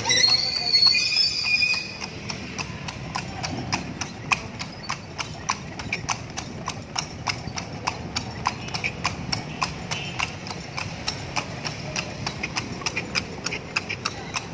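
A carriage horse's hooves clip-clopping on a paved road at a steady pace, about three to four hoofbeats a second, as it pulls a tartanilla. Voices are heard over the hoofbeats in the first couple of seconds.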